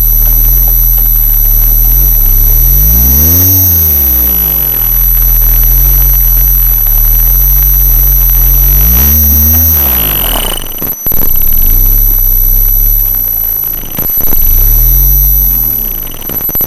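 Electromagnetic interference from the Rockwheel GT16 V3 electric unicycle's motor controller, picked up by a microphone taped onto the controller board while the wheel is ridden. A loud low electrical hum carries whining tones that sweep up and back down several times, over steady high-pitched whines, with a brief dropout about 11 seconds in.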